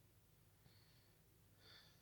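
Near silence: room tone with a low steady hum, and two faint short breaths, one about two-thirds of a second in and a slightly stronger one near the end.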